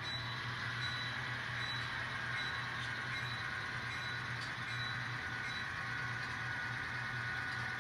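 Model train locomotive running along the track, a steady motor hum with a higher whine over it.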